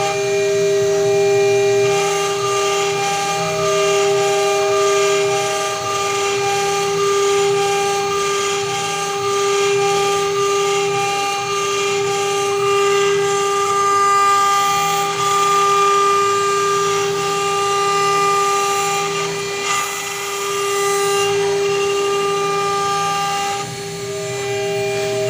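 CNC router spindle running with a steady whine of several overlapping tones while its engraving bit cuts into a brass plate, over a hiss from the cutting.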